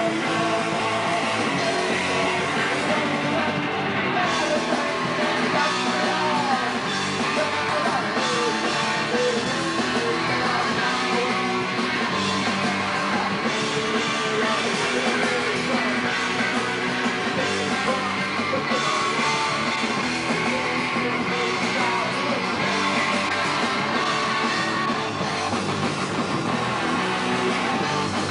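Punk rock band playing live, continuously: electric guitars and drums with a singer shouting into the microphone.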